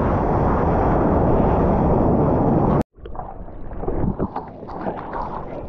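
Loud steady rush of breaking whitewater and wind on an action camera's microphone while surfing a wave. It cuts off suddenly about three seconds in, and is followed by quieter splashing and lapping of seawater at the camera.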